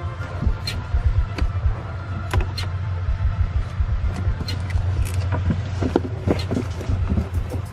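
Irregular clicks and knocks of hand work on trim and parts in a car's trunk, over a steady low hum.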